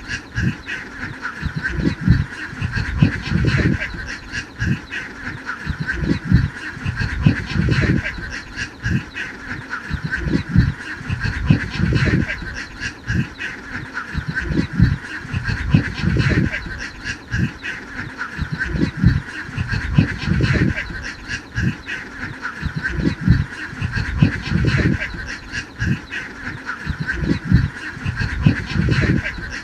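A large flock of domestic ducks quacking, many calls overlapping into a continuous din with no break.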